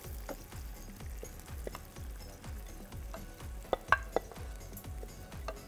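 A spoon stirring soaked lentils into a sizzling, bubbling tomato masala in a pan, with scattered sharp clinks of the spoon against the pan, loudest in a quick cluster about four seconds in.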